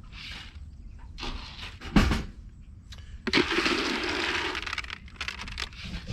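Pigs nosing and pushing at their feeder hatch: a sharp knock about two seconds in, then a few seconds of scraping and rustling.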